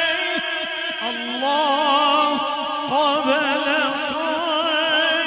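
A man's voice singing a Punjabi naat unaccompanied into a microphone, in long drawn-out notes with a wavering vibrato. About a second in, it slides onto a new, lower note.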